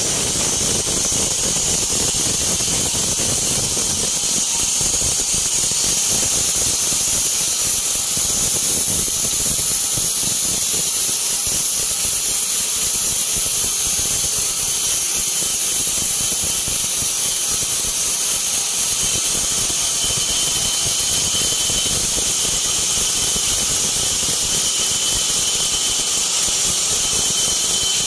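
Band sawmill blade cutting lengthwise through a teak log, slicing off a thin 1 cm board: a steady, high-pitched squeal over the rough noise of the cut.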